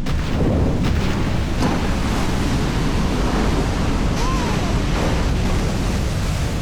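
Heavy seas and wind around a crab boat: steady loud rush of breaking waves and spray, with wind buffeting the microphone.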